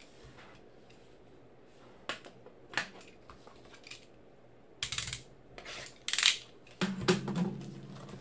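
Hands handling trading-card boxes and packaging: a couple of light clicks, then louder scraping and rustling of cardboard and wrapper in the second half.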